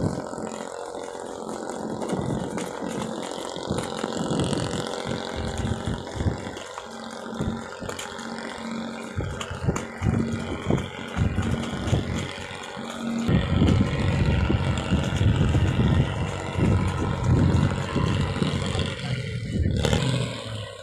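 Boat engine running steadily under way, with gusts of wind buffeting the microphone; the rumble grows louder about two-thirds of the way through.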